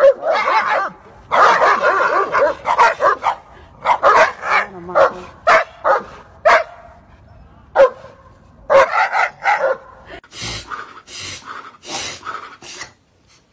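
A dog barking and yelping in a long run of short, loud calls that come in clusters with brief gaps. From about ten seconds in the calls turn harsher and noisier, then stop shortly before the end.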